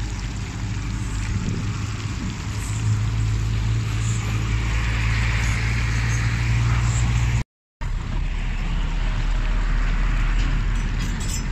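Pieces of fish deep-frying in hot oil in a wok, a steady sizzle over a low steady rumble. The sound cuts out for a moment about two-thirds of the way through.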